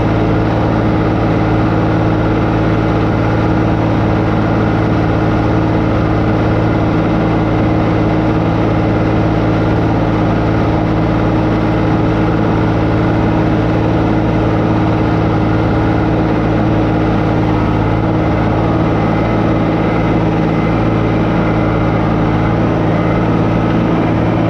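An engine running steadily at a constant speed, with a continuous even hum and no changes in pitch, as when powering a crop-spraying rig during spraying.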